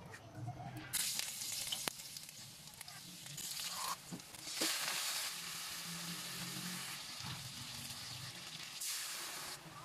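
Sliced onions and garlic, then chicken pieces, sizzling as they fry in oil in a wok. The sizzle starts about a second in, grows louder around the middle, and has a few sharp clicks in it.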